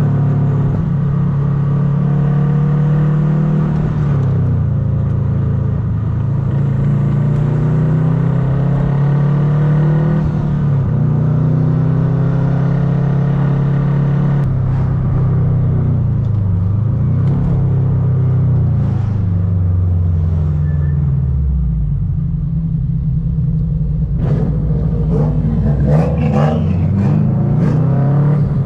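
Turbocharged Subaru Impreza flat-four engine running under way, its pitch climbing and dropping several times as it pulls and shifts. Near the end a quick run of short sharp sounds rides over the engine.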